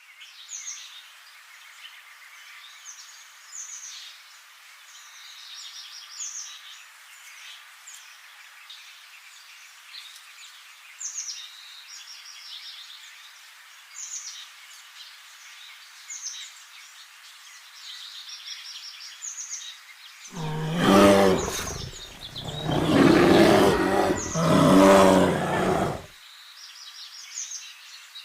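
A small bird chirps repeatedly, short high notes every second or two, over a steady outdoor hiss. About twenty seconds in, a large animal gives loud, deep calls in about three surges lasting some six seconds.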